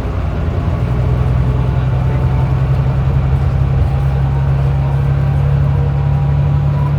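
Volvo B9TL bus's six-cylinder diesel engine heard from on board, running steadily under load. Its note rises slightly about a second in, with a faint whine that climbs slowly as the bus gathers speed.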